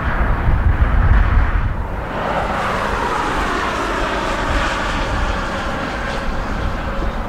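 Jet airliner engines running past with a steady roar; from about two seconds in, a whine of several tones rises out of it. Wind gusts buffet the microphone with a low rumble in the first two seconds.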